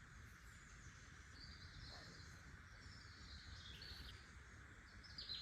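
Faint birdsong: short, repeated chirping phrases over a low, steady background hiss.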